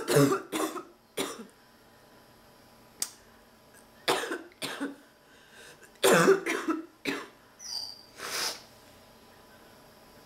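A sick person coughing in several hard, barking fits, each a quick run of coughs, a couple of seconds apart. The coughing is strained enough that the person's back hurts from it.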